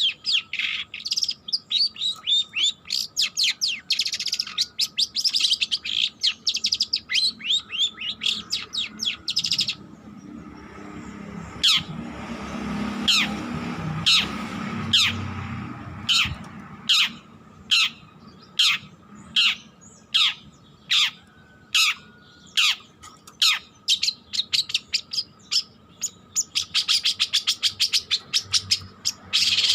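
A young long-tailed shrike sings a practising song. It opens with fast, dense chattering, breaks into a run of separate down-slurred notes about two a second, then returns to rapid chatter near the end.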